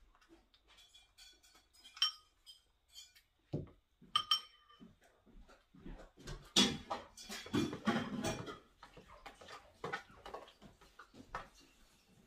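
Dishes and cutlery clinking and clattering. There are two short ringing clinks in the first half, then a denser run of clatter around the middle.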